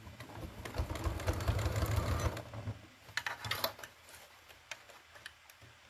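Electric sewing machine running a straight stitch through layered batik fabric for about two and a half seconds, then stopping. A few light clicks follow.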